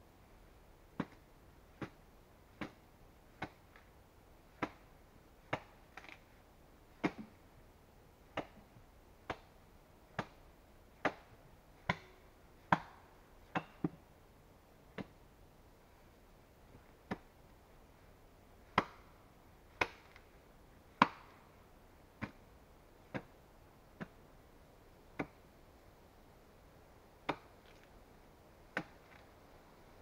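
Axe chopping into a log, hewing it into a beam: sharp blows of the blade biting the wood, roughly one a second with a few short pauses.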